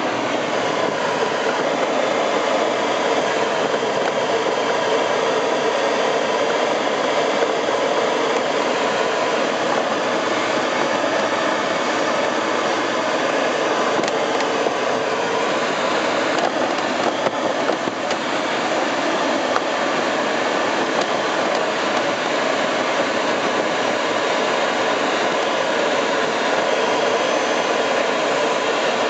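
Steady rushing airflow over the canopy of a Nimbus 4T glider in flight, heard from inside the cockpit.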